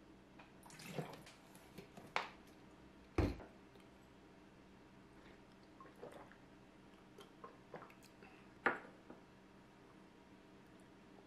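Water poured into a glass pitcher trickling to a stop, then a heavy knock on the table about three seconds in as a vessel is set down. Light clicks and clinks of a ceramic bowl and chopsticks follow near the end.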